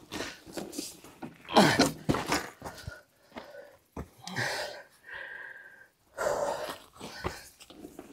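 A person breathing hard in wheezy, breathy gasps while straining at heavy work, with short gaps between the breaths.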